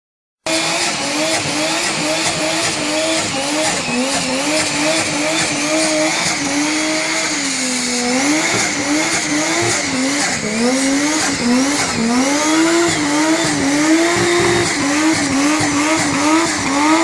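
Toyota 2JZ straight-six in a Nissan Hardbody pickup held at high revs during a burnout, the engine note rising and dipping every second or so, over the steady screech of the spinning rear tyres.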